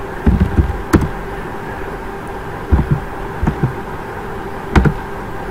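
Steady electrical buzzing hum from a computer microphone, with two sharp mouse clicks, about a second in and again near the end, and a few soft low thumps between them.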